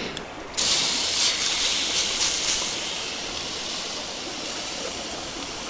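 Food sizzling as it goes into a hot pot: a loud hiss that starts suddenly about half a second in, then slowly dies down.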